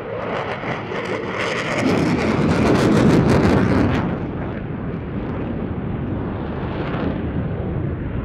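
Two Eurofighter Typhoon fighter jets flying a low, fast display pass, their twin turbofan engines giving a loud jet roar. The roar swells to a crackling peak about three seconds in, then drops suddenly to a steadier, more distant rumble.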